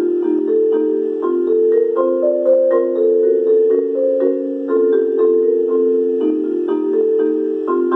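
Marimba played with four mallets: a steady, flowing stream of struck notes that ring into one another as overlapping chords in the middle register.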